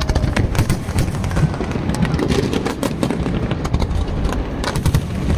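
Fireworks going off: a dense, irregular run of sharp bangs and crackles, several a second, over a low rumble.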